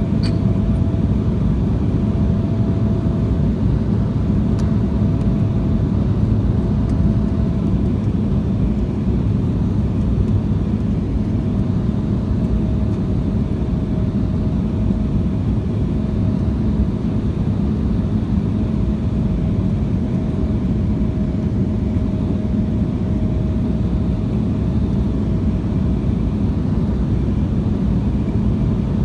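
Steady roar inside the cabin of an Embraer 175 airliner in flight, from its two turbofan engines and the airflow, with a faint steady hum above it that wavers slightly in pitch.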